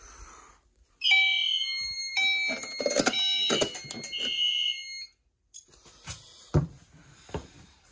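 Fire alarm notification sounding briefly in an audible walk test: a System Sensor SpectrAlert horn and a Gentex Commander 2 set to chime go off about a second in, horn blasts with ringing chime tones between them, and cut off after about four seconds. The SpectrAlert sounds a little off, which the owner puts down to the panel's power. A few clicks and knocks follow.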